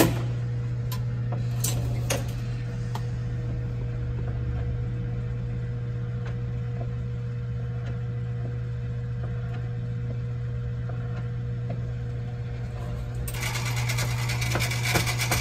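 Vintage chemical photobooth's carousel drive running: its motor and transmission give a steady hum, with a few light clicks in the first few seconds as the strip carriers move. About thirteen seconds in, a louder hissing whir with a higher tone joins.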